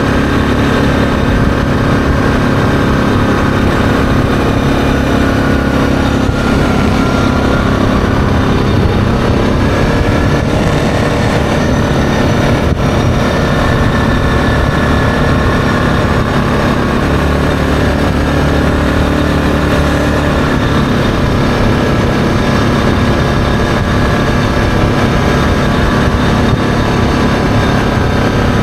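ATV engine running at a steady cruising speed, its pitch shifting a little now and then, with tyre noise from the gravel road underneath.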